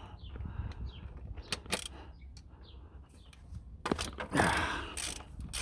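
Half-inch-drive ratchet with a 27 mm socket clicking as it works a tight nut on the wheel hub. A few scattered clicks come first, then a louder stretch of ratcheting and metal scraping from about four seconds in.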